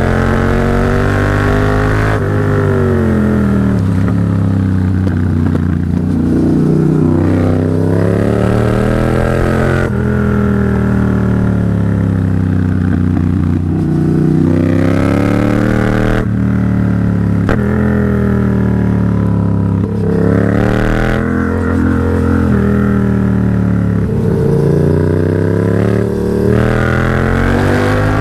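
Yamaha MT-07's parallel-twin engine through an aftermarket AliExpress exhaust, pulling hard through the gears. The pitch climbs and drops back at each gear change, over and over.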